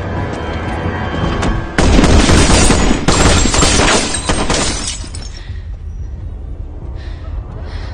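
A volley of rifle fire from several AR-pattern carbines, shots overlapping into a dense burst. It starts about two seconds in, lasts about three seconds, then stops, with a low music drone underneath.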